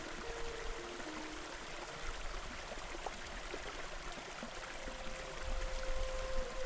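Steady rush of flowing water from a waterfall and river, an even hiss with no breaks. Faint soft held notes sit under it.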